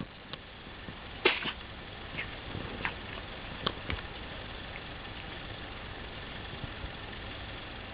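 A cat's sneezing fit: one sharp sneeze about a second in, then a few fainter ones over the next three seconds.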